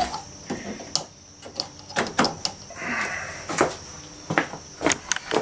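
A string of sharp clicks and knocks as a plastic cord plug is handled and pushed into a ceiling-mounted electrical outlet, with a brief rustle about three seconds in.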